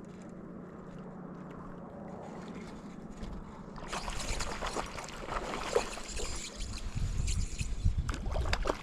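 Water sloshing and splashing with scattered short crackles, starting about four seconds in, as a hooked tiger trout is played near the water's edge. Before that there is only a faint steady hum.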